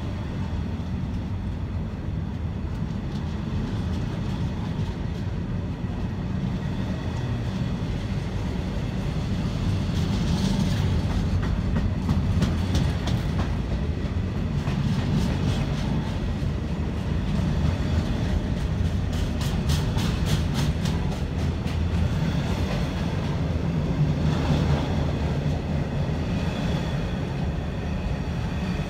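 Freight train of loaded container wagons passing close by: a steady low rumble of wheels on rail, with runs of rapid clicking as the wheelsets cross rail joints, about ten seconds in and again around twenty seconds.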